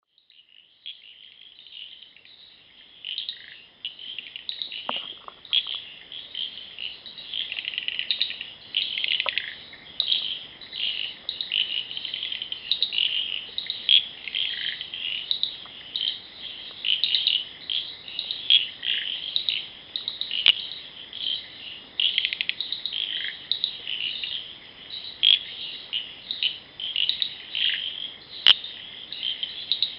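Night forest chorus of frogs and cicadas: dense, overlapping high chirps and trills pulsing irregularly, with a few sharp clicks.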